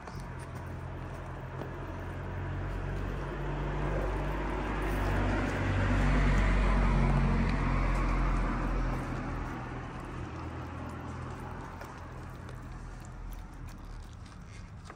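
A motor vehicle passing by: engine hum and road noise grow louder, peak around the middle, then fade away over several seconds.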